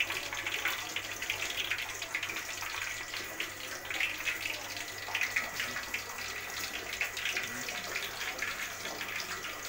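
Hot cooking oil in a wok sizzling and crackling steadily after the stove has been turned off.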